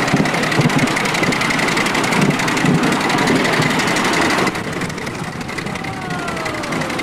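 Ride-on miniature steam locomotive running along the track, its exhaust and wheels on the rails making a dense, rumbling, mechanical noise with irregular low thumps. The sound drops noticeably about two-thirds of the way through, and a faint falling squeal comes near the end.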